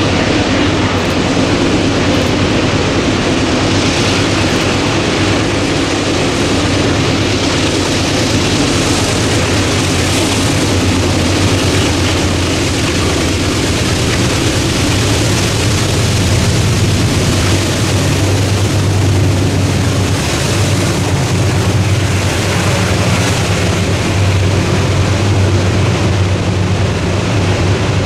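Diesel-electric locomotives of a freight train passing close by with their engines running steadily, followed by freight cars rolling over the rails. The low engine drone grows stronger about halfway through.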